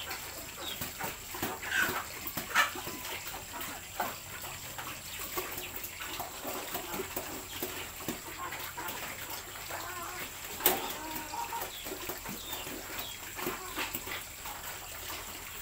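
Farm animals in a pig farrowing pen: scattered short calls and small clicks, with one sharp knock about ten and a half seconds in.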